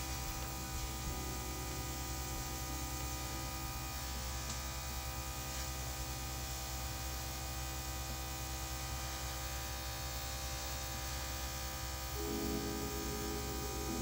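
Small airbrush compressor running with a steady electric hum.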